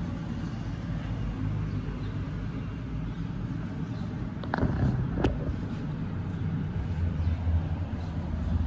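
Low steady mechanical rumble and hum, with two short sharp clicks about halfway through.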